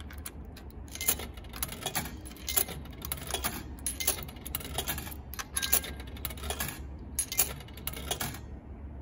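Coins being pushed one by one into a vending machine's coin slot, clinking in the hand and dropping inside the machine: a rapid run of sharp metallic clicks that stops shortly before the end.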